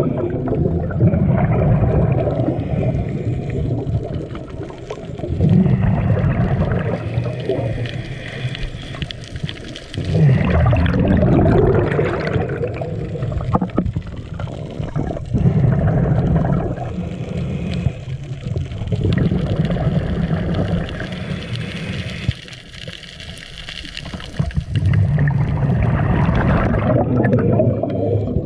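Scuba diver breathing through a regulator, heard with the camera underwater: a hissing inhalation, then a long bubbling exhalation, repeating about every five seconds.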